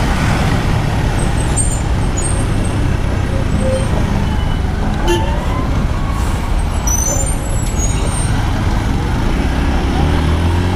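Motorcycle engine running while riding in city traffic, under a steady rush of wind and road noise; its note grows stronger near the end. A few brief high squeaks come from the surrounding traffic in the middle.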